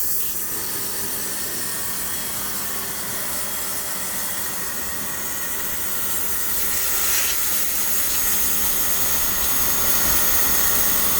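Makita electric pressure washer running, its motor and pump humming steadily under the hiss of the high-pressure water spray. It grows a little louder after about six seconds.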